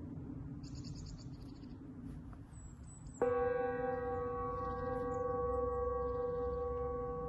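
Singing bowl struck once with a mallet about three seconds in, then ringing on steadily with one clear tone and several overtones.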